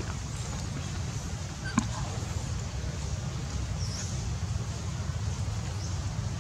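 Steady low outdoor background rumble, like wind or distant traffic, with one sharp click about two seconds in.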